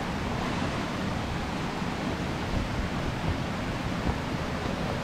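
Steady rushing noise with an uneven low rumble beneath it.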